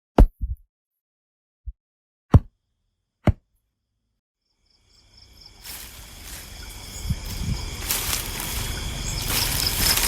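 Five short sudden hits or plops in the first few seconds, some with a brief low tail that drops in pitch. After a gap of silence, a noisy outdoor-like background fades in from about five seconds, growing louder, with steady high tones over a low rumble.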